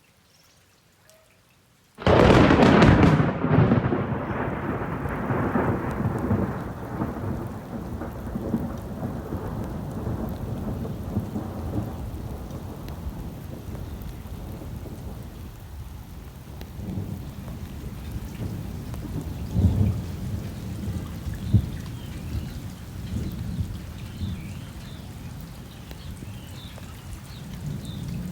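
Near silence, then about two seconds in a sudden thunderclap that rolls and fades over several seconds, followed by steady rain with occasional low rumbles of thunder.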